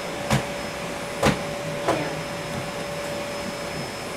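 A steady machine-like whirring hum with a faint steady whine, broken by three short knocks about a second in and near the middle, the last with a brief falling squeak.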